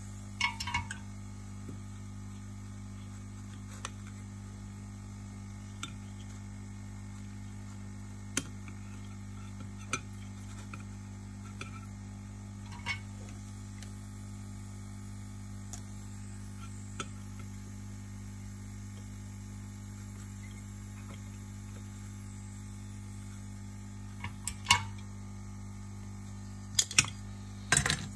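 A steady low hum with scattered light clicks and clinks of small metal tools and parts being handled on a workbench, every few seconds at first, then a few louder knocks near the end as the aluminium amplifier chassis is handled.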